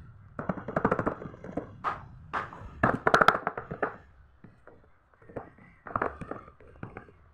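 Silicone pop-it fidget toys being pressed, their bubbles popping in quick runs of soft pops and clicks, with short pauses between the runs.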